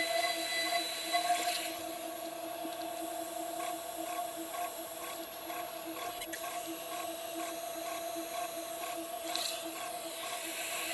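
CNC 6040 router milling an aluminium plate: the spindle runs steadily with constant tones while the end mill cuts, and a faint even ticking comes about twice a second through the middle. The sound gets a little quieter about two seconds in.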